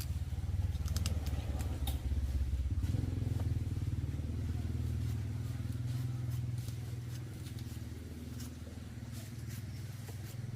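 A small motor engine running steadily, loudest early on and slowly easing off toward the end, with scattered light clicks over it.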